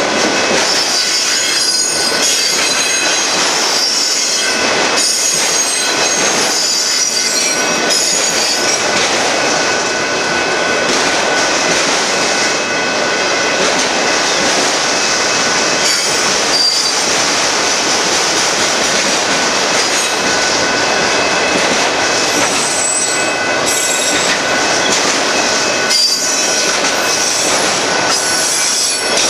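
Autorack freight cars of a Union Pacific train rolling past close by: a loud, steady rumble and rattle of steel wheels on the rails, with high-pitched wheel squeal that comes and goes.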